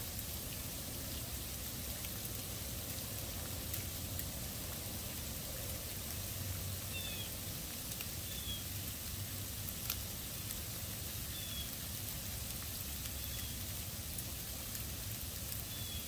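Steady hiss of falling precipitation with scattered faint ticks. A small bird gives a few short, high, falling chirps from about seven seconds in, spaced a second or two apart.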